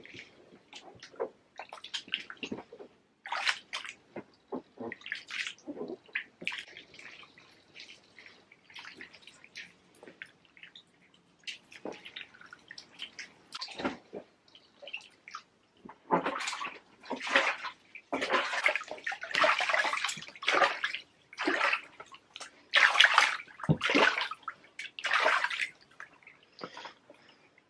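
Bare feet treading grapes in a plastic tub: wet squelching and sloshing of crushed grapes and juice in irregular bursts, louder and busier in the second half.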